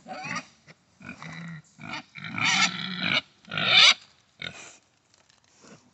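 Sows making a run of short, separate calls, the loudest one just before four seconds in, dying away to faint sounds near the end.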